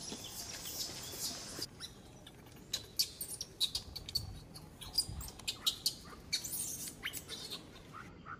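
Baby macaque monkey making short, high-pitched squeaks in a quick, irregular series, over a steady high hiss that stops about a second and a half in.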